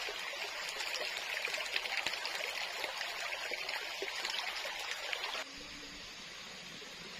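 Shallow rocky forest stream trickling and splashing over stones. It cuts off abruptly about five and a half seconds in, leaving a quieter steady hiss.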